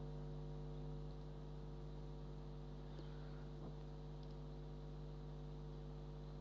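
Faint, steady electrical mains hum with a stack of even overtones, and a couple of soft clicks about halfway through.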